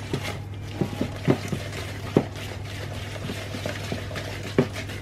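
Wire whisk beating a thick cookie batter of melted butter, sugar and egg in a mixing bowl, with several sharp knocks of the whisk against the bowl. A steady low hum runs underneath.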